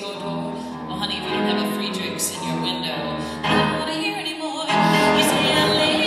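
A woman singing a comic song at a microphone with live grand piano accompaniment. The passage gets louder about three and a half seconds in.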